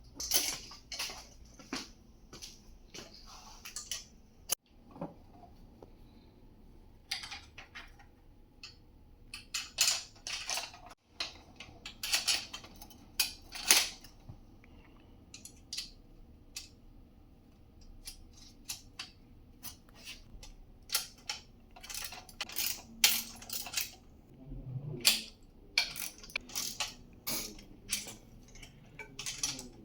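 Irregular metallic clicks, clinks and rattles of small hardware and tools being handled while a metal cart is put together, some louder knocks among them.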